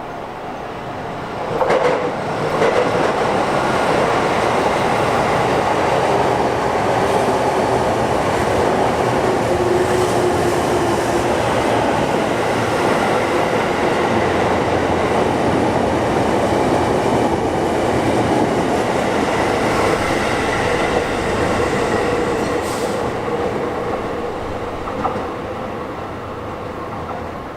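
Sotetsu Line electric train passing close by on the track. The sound rises sharply about two seconds in, holds steady, and fades over the last few seconds.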